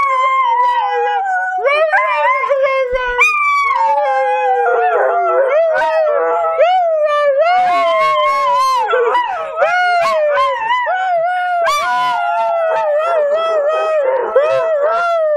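A podenco and other dogs howling together: long, overlapping howls that waver and slide in pitch, with no break.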